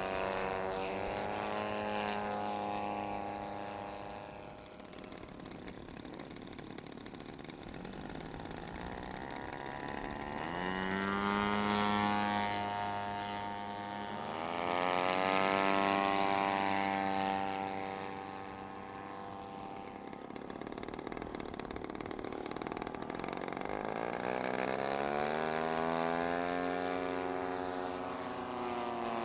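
Large-scale radio-controlled WW2 fighter models flying past: propeller engines running steadily, each pass swelling in loudness and gliding up then down in pitch, loudest around the middle and again near the end.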